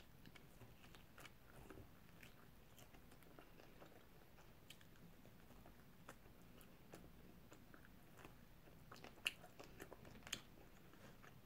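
A person biting and chewing food held in the hands: faint, scattered mouth clicks and crunches, with two sharper clicks about nine and ten seconds in.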